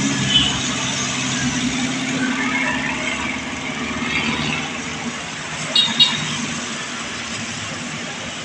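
Double-cab pickup engine running steadily. Two short, sharp sounds come close together about six seconds in.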